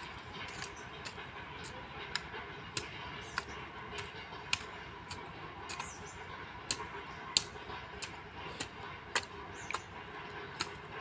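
Weeding in soft garden soil: a steady run of sharp ticks, a little under two a second, over a faint background hiss.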